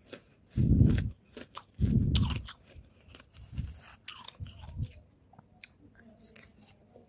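Close-miked biting and chewing of powdery freezer frost: two loud crunches in the first two and a half seconds, then softer chewing. Small crackles and clicks come from a metal spoon scooping the frost off a plate.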